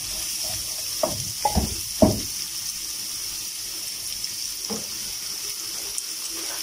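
Chopped onions tipped from a ceramic bowl into hot oil in a frying pan, sizzling steadily, with a few knocks from the bowl and pan between one and two seconds in, the loudest about two seconds in.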